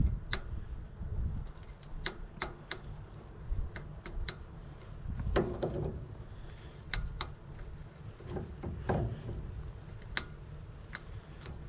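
Irregular sharp clicks and light knocks, about a dozen, from handling a pin and mounting parts on a Kubota tractor while lining up a hole, with a low rumble underneath.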